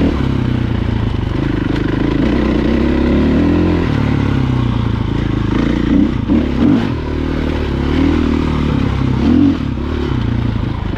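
Dirt bike engine running under way, its note rising and falling with the throttle and dropping in pitch about four seconds in, with short louder bursts of throttle around six and nine seconds in.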